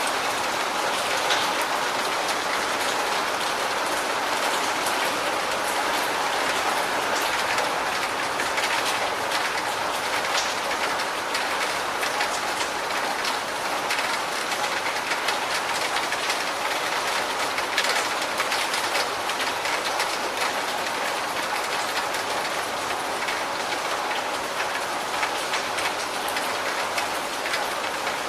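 Steady rain falling, an even hiss dotted with countless small drop ticks.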